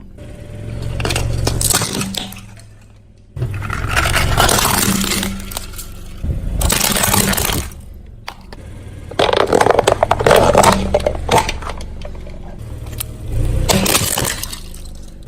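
A car's tyre rolling over and crushing crunchy objects, with crackling, breaking and scraping over the low steady sound of its engine. There are several separate crushes, with abrupt jumps between them.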